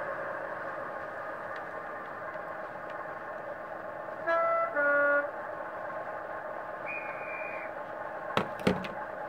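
DCC sound decoder in a Dapol OO gauge Class 121 model railcar playing a diesel engine idling through the model's small speaker. Two horn blasts on different notes come about four and five seconds in. A short high tone follows, then two sharp clicks near the end.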